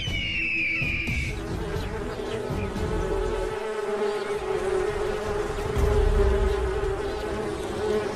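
A bird of prey gives a high, descending call in the first second. Then comes the steady, droning buzz of wasps at their paper nest, which swells a little near the middle.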